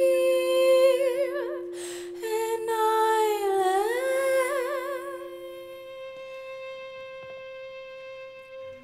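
A woman's wordless sung line with vibrato, processed live through electronics, over a steady held low note. Her pitch dips and climbs back about three and a half seconds in. The low note stops about six seconds in, and her last held note fades away.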